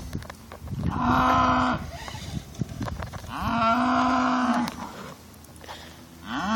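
Cattle mooing: two drawn-out, steady-pitched moos about a second or more each, the second starting about halfway through, and a third beginning right at the end.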